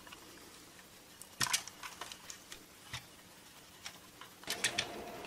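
Scattered light clicks and taps of the plastic case of an AstroAI 6000-count digital multimeter being handled and turned over, its halves separated, with a few sharper knocks about a second and a half in and near the end. A faint steady hum comes in near the end.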